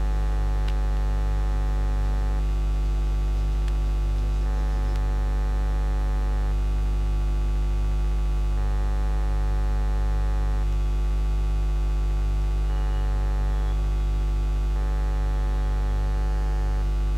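Steady electrical mains hum: a loud low drone with a buzzing stack of evenly spaced overtones, holding at one level.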